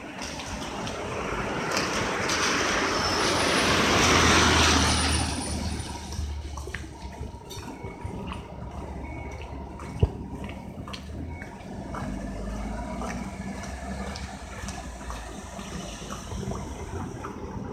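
A car passes on a wet road, its tyre hiss and engine swelling over a few seconds and then fading. A steadier low background follows, with one sharp click about ten seconds in.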